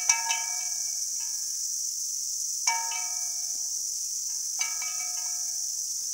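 Hanging sheet-metal cowbells struck by a hen's pecks, ringing out three times, each clang dying away over about a second. A steady high hiss of insects runs underneath.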